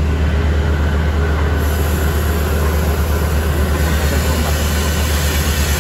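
Borehole drilling rig and its air compressor running hard: a loud, steady low rumble with a fast, even pulsing, and a hiss above it that grows about one and a half seconds in.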